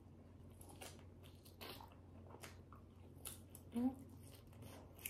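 Faint mouth sounds of someone biting and chewing a cheese-filled sausage: scattered soft wet clicks and smacks, with a brief hummed "mm" nearly four seconds in.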